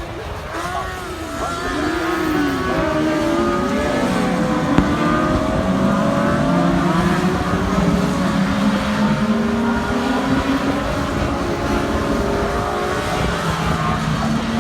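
Racing sidecar outfits' engines revving on track. Several engines sound at once: their pitches rise and fall in the first few seconds, then hold and step up and down through the gears, over low wind noise on the microphone.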